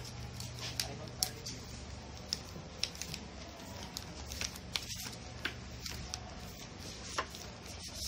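Paper and plastic rustling and crinkling as sheets of red paper are folded by hand and plastic-sleeved papers are handled: irregular crisp crackles over a steady low hum.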